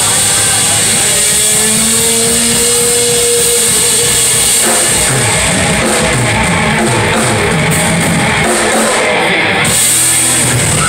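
Live rock band (electric guitar, bass guitar and drum kit) playing loud through the PA, heard from the audience. A couple of long held guitar notes ring over the band in the first half, then about halfway through the drums and bass drive a busy rhythmic run.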